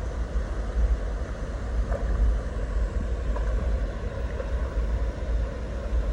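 Steady rushing of water from a waterfall, with wind buffeting the microphone in a low, uneven rumble.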